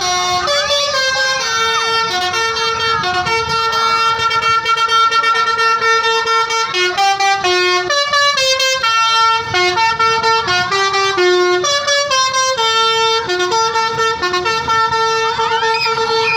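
Tour bus 'telolet' multi-tone horn playing a melody of quick stepped notes, loud and without a break.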